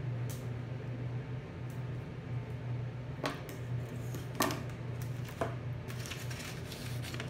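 A few sharp clicks and rustles of hands handling paper, tape and a styrofoam block, with quicker rustling near the end, over a steady low hum.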